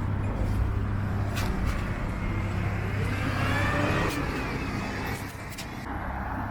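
Road traffic on a town street: a vehicle engine running with a steady low hum, and a car passing by about three to four seconds in.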